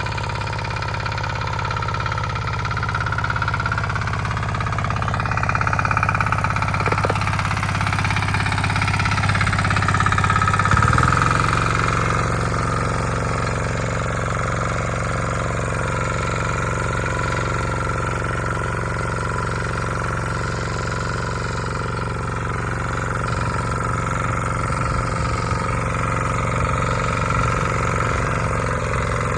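Bolat Atom walk-behind motor hoe's engine running steadily under work, its pitch shifting down about eleven seconds in.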